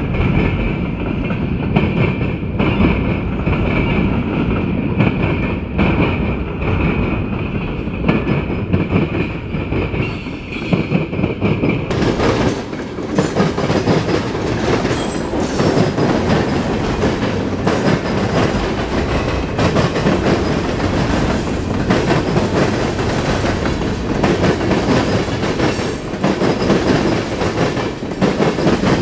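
Local freight train rolling past, its wheels clacking over the rail joints with a steady rumble. A high steady wheel squeal runs through the first half, then gives way to a broader rush of noise.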